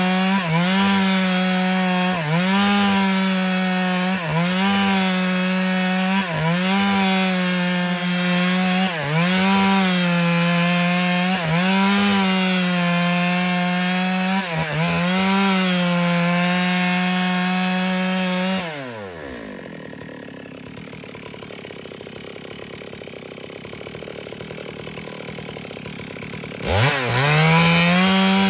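Stihl MS 382 two-stroke chainsaw with a 25-inch bar ripping lengthwise through a red meranti log at full throttle, its engine note dipping briefly and recovering every two seconds or so as the chain bites. About two-thirds through, the throttle is released and the saw drops to a quieter idle, then near the end it revs sharply back up to full speed.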